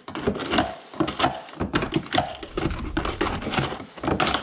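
Irregular clattering and knocking of hard objects being handled: chunks of ice and the plastic parts of a refrigerator ice maker.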